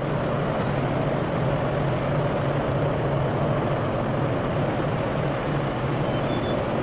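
GE diesel-electric freight locomotives working hard under load, a steady deep engine drone heard from a distance as they haul a long, loaded potash train upgrade.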